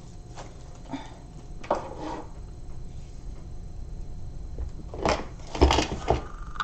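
Clear plastic storage case and packaging handled on a tabletop: soft rustles and light taps, then a cluster of louder knocks and a thud about five seconds in, as the case is picked up and set down.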